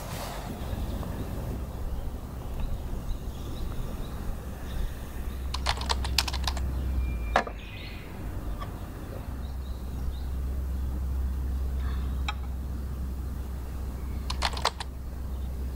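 Light clicks and tapping of small hard objects in a few short clusters, over a low steady rumble that drops away for a couple of seconds in the middle.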